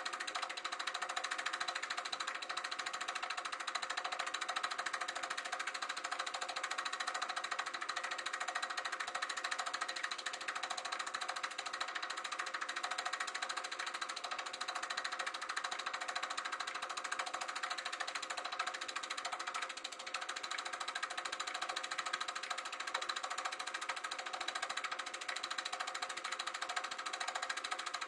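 Sankyo Dualux 1000 8mm film projector running: a steady, rapid mechanical clatter of the film being pulled through, with a steady motor hum underneath.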